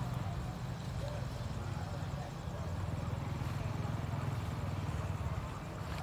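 Diesel railcar train approaching from a distance: a low, steady engine rumble.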